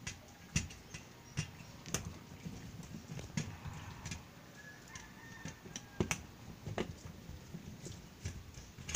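Small screwdriver turning out screws from a floppy drive's sheet-metal chassis: irregular light clicks and taps, one every half second to a second or so.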